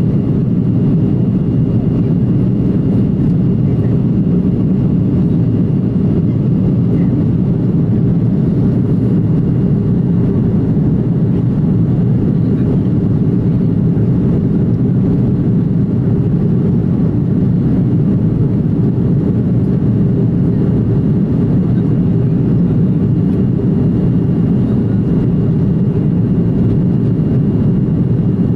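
Steady, loud cabin drone of an Airbus A330-300 airliner in flight, heard from a window seat: the rumble of its Rolls-Royce Trent 700 turbofans mixed with airflow over the fuselage, with a faint steady whine above it.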